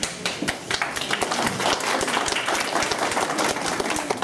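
A small audience applauding: many people clapping hands together in a dense, irregular patter of claps.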